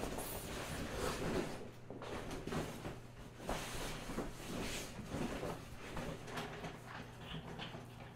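Faint, irregular rustling and light knocks of someone moving about and handling things in a small room, over a steady low hum.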